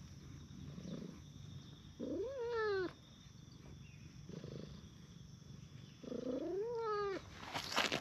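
A cat meowing twice, about four seconds apart, each a drawn-out meow that rises then falls in pitch, with low purring underneath.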